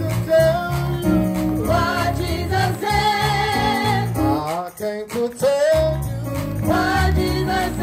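Gospel singing with instrumental accompaniment: a voice holds wavering sung notes over steady low chords and bass. The music thins briefly about five seconds in, then resumes.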